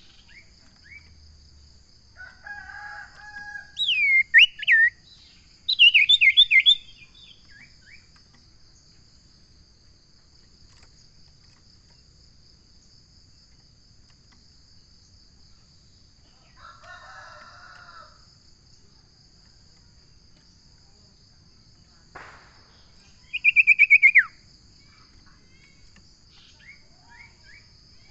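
Common iora (cipoh) calling: sharp descending whistles about four seconds in, a quick run of falling notes around six seconds, and a fast descending trill near the end, over a steady high insect drone.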